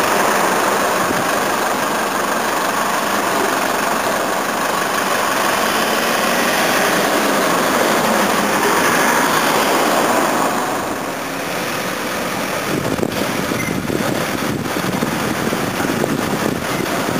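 Engine of a wheeled armoured vehicle running as it drives slowly past close by. It fades after about ten seconds, leaving a quieter engine sound with a few sharp clicks near the end.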